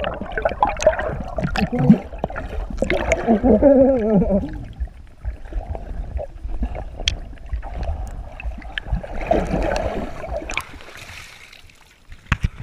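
Muffled underwater sound picked up by an action camera held under the lake surface: rushing water and bubbling over a low rumble, with wavering warbles in the first few seconds and scattered small clicks. The camera comes back out of the water near the end.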